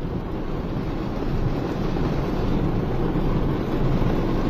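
Floodwater churning and splashing as a car drives through a flooded street, heard as a steady, low rushing noise with wind buffeting the microphone.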